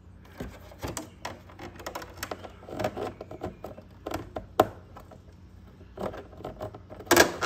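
Irregular clicks, taps and scrapes of a metal tool and hands working against the plastic panels and parts of a scooter's battery compartment, fishing for a dropped screw, with a louder clatter near the end.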